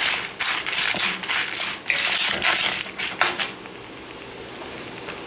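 Wooden spatula stirring dried red chillies and dal frying in oil in a metal kadai: crisp, irregular scraping and rattling strokes over a steady sizzle. The stirring stops about three and a half seconds in, and the sizzle goes on.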